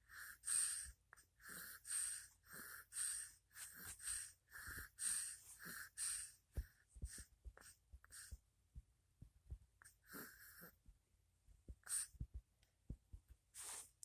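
Faint, wheezy snoring breaths from a sleeper. They come quickly and evenly, about two a second, for roughly six seconds, then only now and then.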